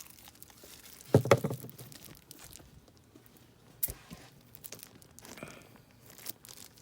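Hands handling small engine parts and crinkly packaging on a workbench: a short burst of rustling about a second in, then a sharp click and scattered light taps and rustles.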